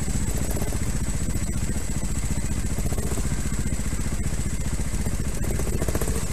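Trials motorcycle engine idling steadily, with no revving.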